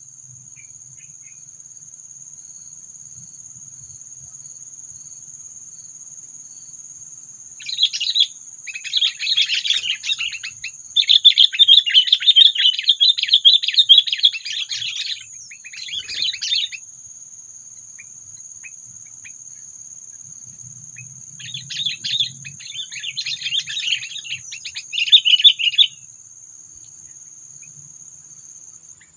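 Sooty-headed bulbul (kutilang) giving rapid chattering calls in several bursts, the longest about four seconds, over a steady high-pitched insect drone.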